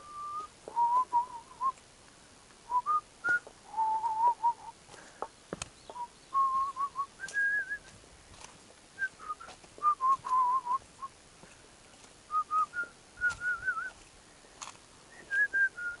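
A person whistling a tune: short phrases of clear single notes, each with a slight waver, stepping up and down through a moderate pitch range, with brief pauses between phrases.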